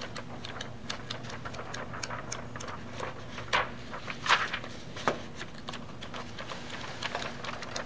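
Sheets of pencil animation paper being flipped one after another, a run of quick papery flicks with a few louder snaps around the middle, over a steady low hum.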